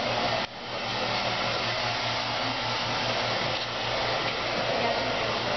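Handheld hair dryer running steadily, a continuous airy whoosh with a faint low hum; it dips out briefly about half a second in, then carries on.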